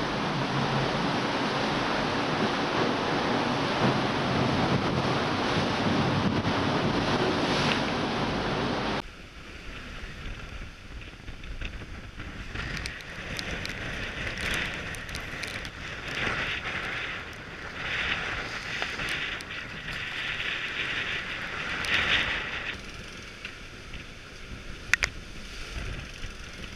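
Wind and rushing water aboard a Nautitech Open 40 catamaran sailing at about 16 knots in strong wind. A loud, steady rush changes abruptly about nine seconds in to a quieter, gusting hiss of wind on the microphone, with a few sharp clicks.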